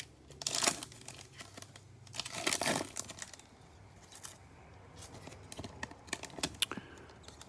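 A foil trading-card pack (2020 Panini Mosaic NFL) being torn open and crinkled by hand: two louder rips, about half a second in and about two and a half seconds in, then fainter crinkling and small ticks of the wrapper.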